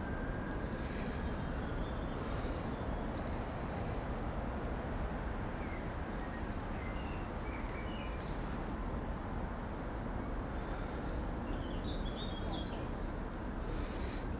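Outdoor ambience: a steady low background noise with birds chirping and singing in short, scattered phrases.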